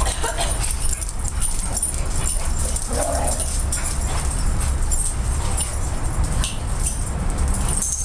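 A pack of dogs playing together, one dog giving a short cry about three seconds in, over a steady low rumble.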